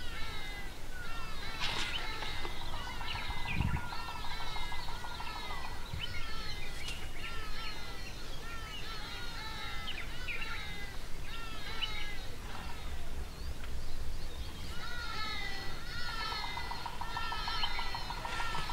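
Wild birds chirping and calling, many short repeated notes overlapping, with a steady buzzing trill that comes in about two seconds in and again near the end, and a single low thump a few seconds in.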